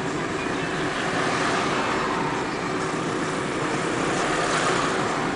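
Steady rumble and hiss of a moving vehicle heard from inside its cabin.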